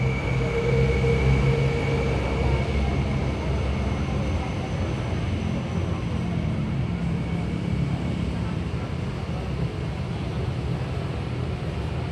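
Low hum of a distant engine over a steady outdoor noise, fading a little after the first few seconds.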